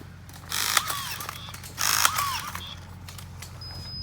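Handheld rebar tying tool twisting tie wire round the bar: two short ratcheting whirrs, about a second apart, with small clicks of wire and steel around them.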